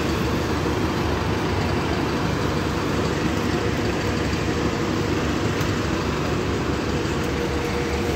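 Steady engine and road rumble inside a NefAZ-5299-40-52 city bus, with a faint steady hum.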